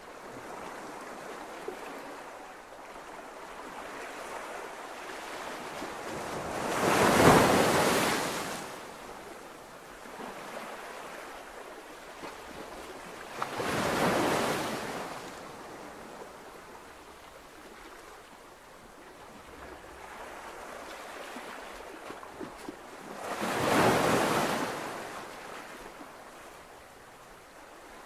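Ocean waves on a shore: a steady hiss of surf, with three waves rising and washing in, about seven, fourteen and twenty-four seconds in, the first the loudest.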